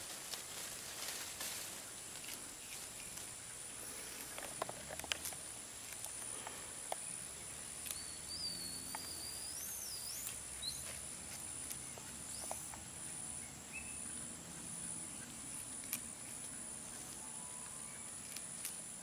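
Forest ambience with a steady high-pitched insect drone throughout. Leaves and twigs rustle and snap in short scattered clicks as red colobus monkeys pull at foliage, and a wavering whistle rises in pitch about eight seconds in.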